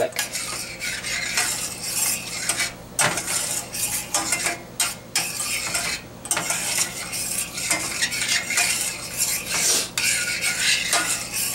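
Metal spoon stirring and scraping in a stainless steel saucepan of onions and garlic in water, making irregular repeated clinks and scrapes against the pan. The scraping is deglazing the pan, lifting the browned bits stuck to the bottom.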